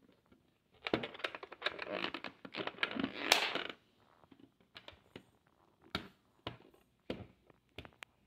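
Plastic bento lunch boxes in paper sleeves being handled: a few seconds of rustling and scraping, then several separate light knocks and clicks as one box is set on top of the other.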